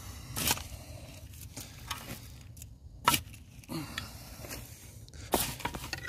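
Garden shovel scraping into loose soil and tipping it into a small hole: three louder scoops about two and a half seconds apart, with lighter scrapes between.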